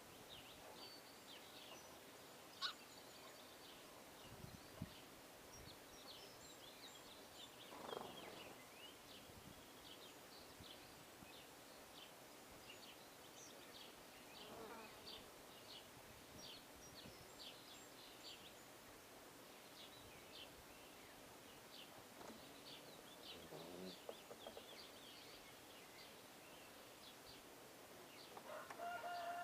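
Faint, scattered chirping of small birds at feeders, with a few lower falling calls in between. Near the end a louder fowl call begins, like a rooster starting to crow.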